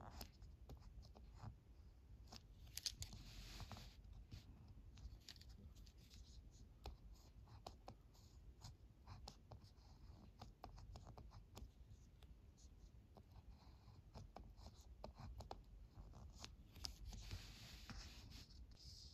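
Ballpoint pen writing kanji on paper: faint scratching of the tip, with many short ticks as strokes start and end, and two longer scrapes, about three seconds in and near the end.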